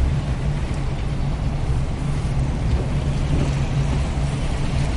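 Inside a moving car: steady engine and road noise, a low hum that holds even throughout.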